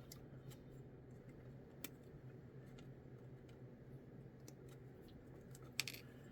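Faint, scattered clicks of hard plastic kit parts being handled, with a sharper click about two seconds in and a louder double snip near the end, like sprue cutters clipping a part off its plastic frame.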